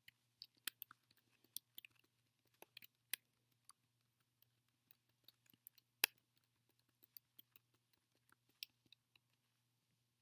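Near silence broken by scattered faint clicks and ticks at irregular intervals, the sharpest about six seconds in, over a faint steady low hum.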